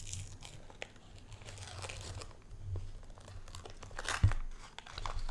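Knife and spatula cutting off butter and working it into a bowl of melted marshmallows: quiet crinkling and scraping with small clicks, and one sharper tap a little after four seconds in.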